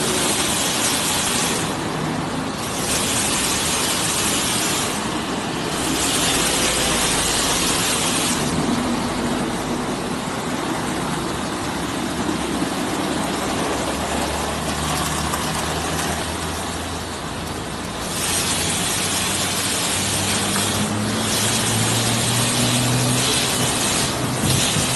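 Automatic car wash machinery running: spinning wash brushes and a steady hiss, over a low motor hum. The hiss drops out briefly several times in the first half, and the hum rises in pitch near the end.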